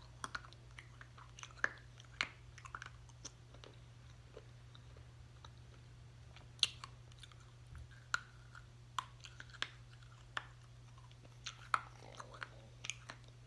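Close-up chewing and crunching of candy cigarettes, chalky hard sugar sticks, with irregular sharp crunches as pieces are bitten off. A faint steady low hum runs underneath.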